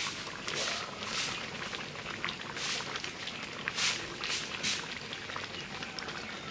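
A pot bubbling on the stove, with a steady low bubbling and short spurts of hiss every second or so.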